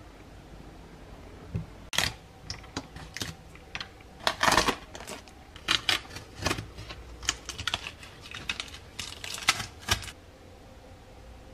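Hands handling small plastic model parts and masking tape on a cutting mat: a run of irregular light clicks and taps, with a short scratchy burst about halfway through.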